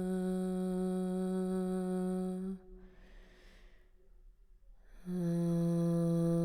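A woman's voice toning a long, steady low note for sound healing. About two and a half seconds in it breaks off for a soft in-breath, then takes up another long note near the end.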